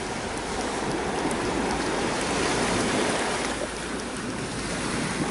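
Rushing noise of sea surf and wind on the microphone, swelling slightly in the middle and easing off.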